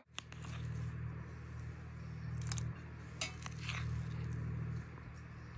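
A metal spoon clinking against a plate and a steel jug a few times as chopped watermelon is scooped and stirred into milk, over a steady low hum.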